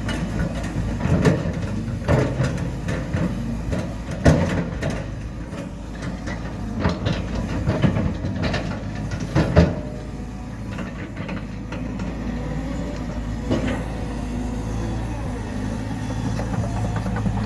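Heavy diesel construction machinery running, with irregular sharp metallic clanks and knocks through the first ten seconds or so, then a steadier engine note.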